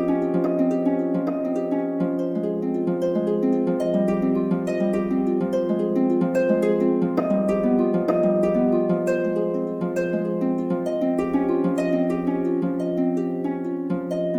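Background music: a quick, steady stream of short plucked notes over a held low note.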